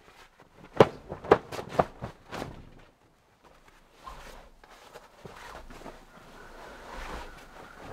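A heavy waxed-canvas ground mat with a wool lining being shaken out and folded: a few sharp snaps and knocks in the first couple of seconds, then softer rustling of the cloth.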